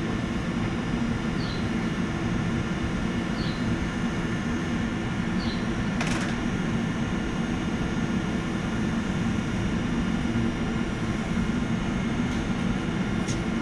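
Tobu 100 series Spacia electric express train standing at the platform, its onboard equipment giving a steady hum with a low drone. Three short high chirps come about two seconds apart in the first half, and a sharp click about six seconds in.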